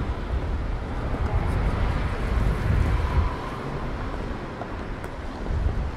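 City street ambience with wind buffeting the microphone in low rumbling gusts, over a steady wash of distant traffic.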